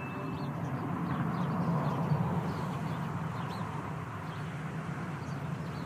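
Outdoor ambience: a steady low background hum with faint, scattered bird chirps.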